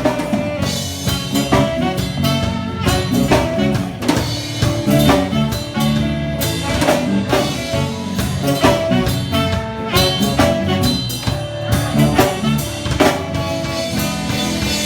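A band playing an instrumental passage of a pop-rock cover medley, with the drum kit keeping a steady beat under bass and sustained instrument chords.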